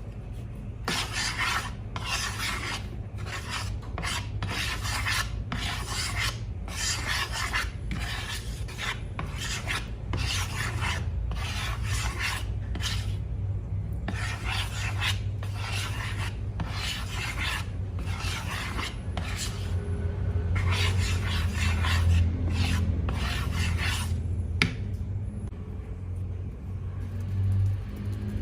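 Something being scraped or rubbed by hand in a long run of short rasping strokes, about one and a half a second, that stop near the end. A steady low hum runs underneath.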